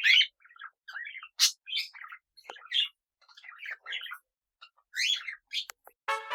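Pet parrots chirping and chattering in short, scattered calls with brief pauses between them.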